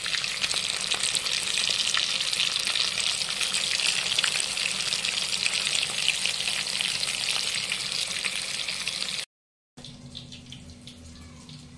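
Masala-coated fish pieces frying in hot oil on their second side, with a dense, steady sizzle full of tiny crackles and pops. It cuts off suddenly about nine seconds in, leaving a much quieter low hum.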